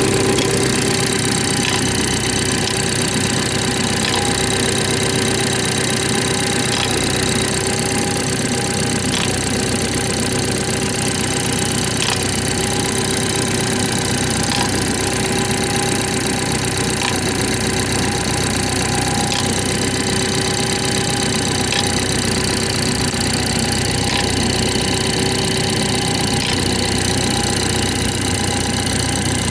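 BMW 430i xDrive's B46/B48 four-cylinder engine idling steadily after a cold start, with a faint click repeating about every two and a half seconds. This is the cold-weather, cold-start state in which the owner hears a weird noise.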